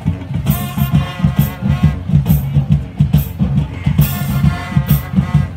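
High school marching band playing in the stands: a steady drum beat with brass phrases over it and repeated cymbal hits.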